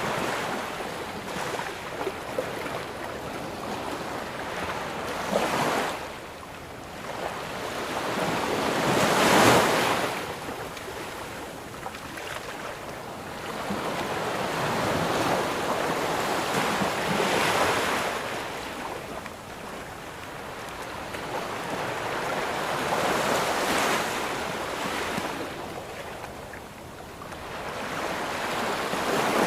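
Ocean waves breaking on a beach, a steady wash of surf rising and falling as each wave comes in, with the biggest break about nine seconds in. Some wind noise on the microphone.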